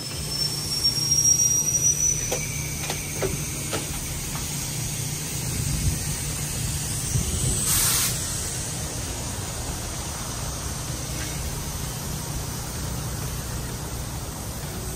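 Workshop background noise: a steady low hum, a few faint clicks, and a short burst of hiss about eight seconds in.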